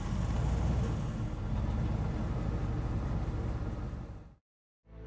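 Car engine and tyre noise as a car drives along a street, a steady low rumble that cuts off abruptly about four seconds in.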